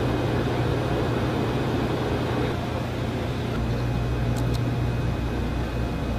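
Steady hum and air noise of the electronics racks and ventilation in a Minuteman missile launch control center, with a low electrical buzz, and two faint ticks about four and a half seconds in.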